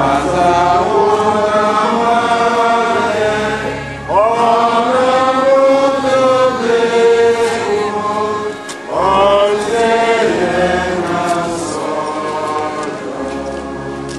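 A man's voice singing a slow liturgical chant into a microphone, with long held notes that slide between pitches, over low sustained accompanying notes.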